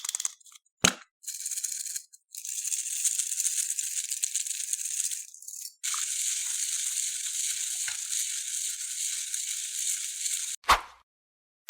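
Crunchy floam slime packed with foam beads, crackling densely as it is worked by hand, in two long stretches. There is a sharp thud about a second in and another near the end.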